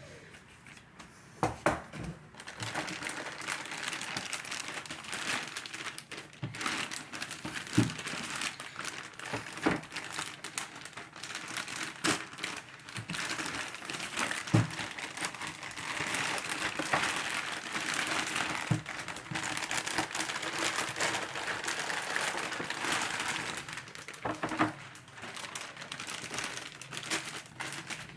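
Plastic packaging crinkling and rustling continuously as a boxed collectible toy is unpacked, with a few sharp knocks of parts against the tray or table.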